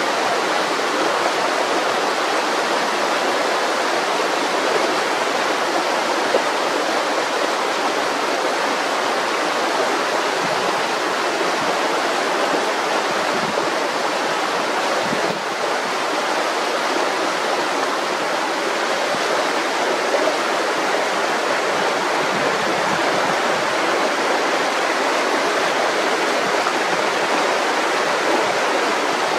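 Mountain river rushing: a steady, even sound of flowing water.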